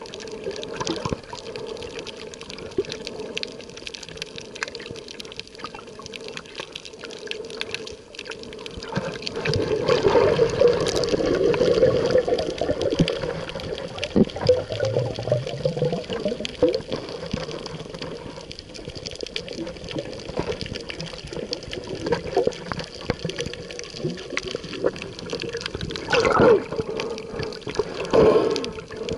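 Water heard from underwater through a submerged camera: a constant crackle of fine clicks over a muffled rush of water, with louder sloshing surges about ten seconds in and twice near the end.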